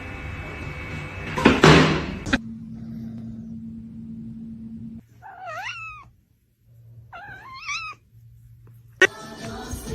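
A short, loud noise about a second and a half in, then a cat meowing twice: two drawn-out calls that rise and then fall in pitch, about two seconds apart.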